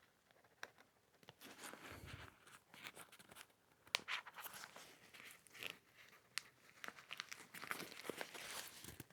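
Faint rustling and scattered small clicks of a backpack's fabric shoulder strap and nylon webbing being handled and pinned into place.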